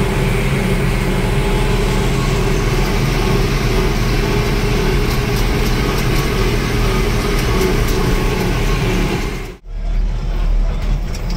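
A tractor engine runs steadily under load while mowing hay, heard from inside the cab along with the mower's drive noise. The sound breaks off for a moment near the end, then the tractor carries on running.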